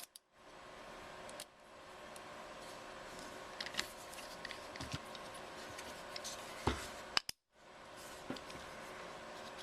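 Small metal clicks and scrapes of Allen wrenches working the set screws on AR-15 anti-walk trigger pins, a few scattered ticks as the screws are tightened, over a steady faint hum.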